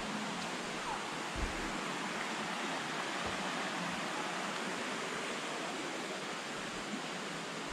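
Steady rush of a shallow stream running over stones, with a soft low thump about one and a half seconds in.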